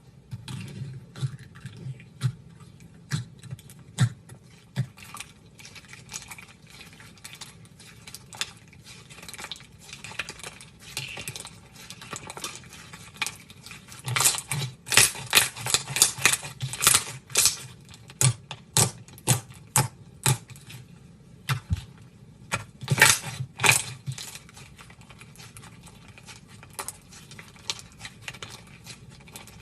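Slime being squeezed and pressed by hand, giving a string of irregular sharp clicks and crackles, louder and denser in two spells about halfway through and again a little later.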